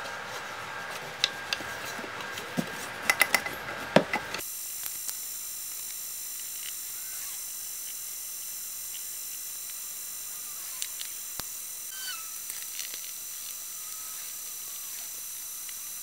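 Several sharp clicks and knocks of a metal rod being handled against a wooden frame, the loudest a few seconds in. The sound then changes abruptly to a steady hiss with a few faint high chirps.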